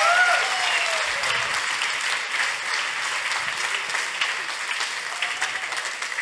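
Audience applauding, loudest at the start and slowly dying down.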